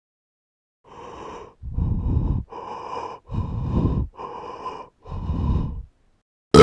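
A person breathing heavily and wheezily: three in-and-out breaths, alternating a quieter breath with a louder, rougher one. A single sharp click, the loudest sound, comes right at the end.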